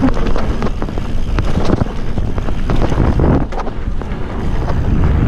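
Wind buffeting the microphone of a handlebar-mounted camera as a mountain bike rides fast down a dirt trail, with tyre rumble and many small clicks and rattles from the bike over the bumps.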